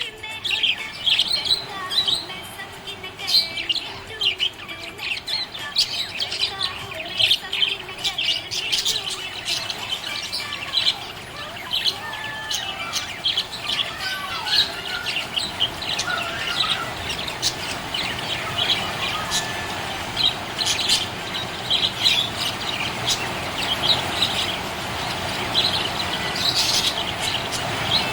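Budgerigar chirping: a continuous stream of quick, high chirps, with lower warbling chatter through the middle.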